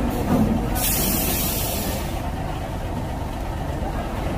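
Heavy truck's diesel engine running, with a hiss of released air from its air brakes about a second in that lasts just over a second.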